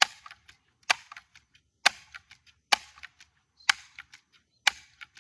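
Ruger BB pistol firing a quick string of shots, about one sharp crack a second, each with a short hiss after it, and faint clicks in between.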